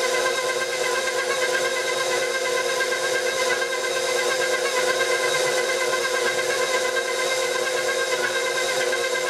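KitchenAid stand mixer running steadily on speed 2, a continuous motor-and-gear whine with a few fixed tones. Its dough hook is turning through a wet dough and working in freshly added flour.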